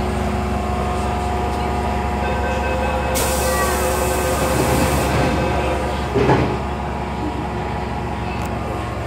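Inside a Hong Kong MTR M-Train carriage at a platform: the train's equipment hums steadily with several held tones. About three seconds in comes a two-second burst of hiss with faint chiming tones, then the doors close with a thud about six seconds in.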